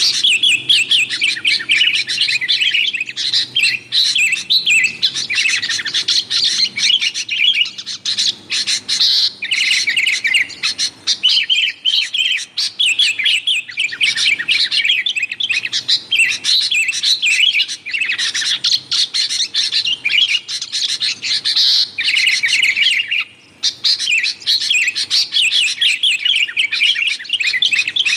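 Sooty-headed bulbuls (kutilang) giving noisy, rapid chattering calls, almost without a break. The calling pauses briefly about 23 seconds in.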